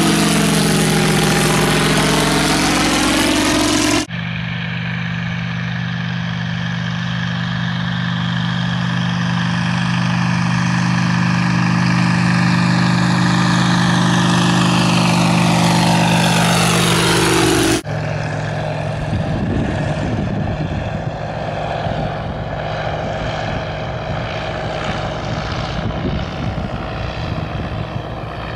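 The engine and propeller of an ultralight Caudron G.III replica biplane, running steadily as the aircraft flies past. Its drone sweeps in pitch as the aircraft passes. The sound changes abruptly about four seconds in and again at about eighteen seconds, then goes on fainter and rougher.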